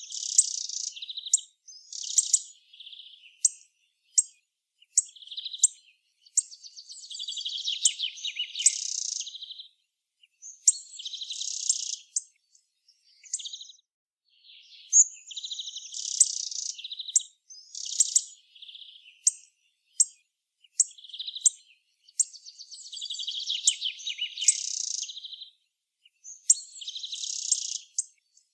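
Hawfinch calling: sharp, clicking 'tzik' notes mixed with buzzy, scratchy phrases. The sequence repeats about every fourteen seconds.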